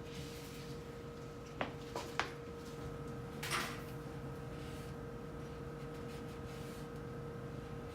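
Three quick light clicks and knocks of things being handled during fridge cleaning, like a drawer or shelf being moved, then a brief hiss about a second later, over a steady hum.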